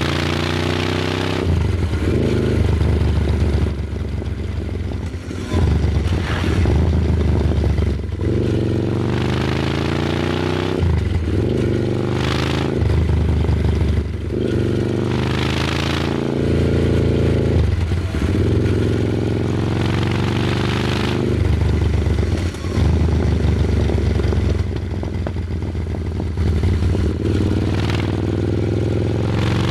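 Royal Enfield Super Meteor 650's 650 cc parallel-twin engine running and repeatedly revved, its pitch rising and falling every few seconds with a hissy surge on each throttle change.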